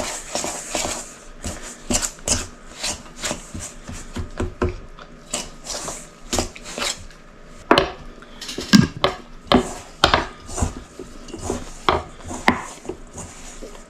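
A utensil mixing a stiff dough of peanut butter, whole wheat flour and grated zucchini in a bowl, clinking and scraping against the bowl in irregular knocks, a few per second.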